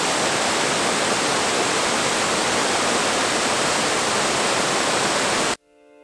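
The Girlevik Waterfall pouring down its rock face: a steady, loud rush of falling water that cuts off suddenly near the end.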